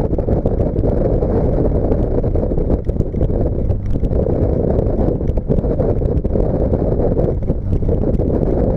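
Subaru Baja's flat-four engine with a single stack exhaust, driving along with a steady low exhaust drone mixed with wind rushing over the microphone.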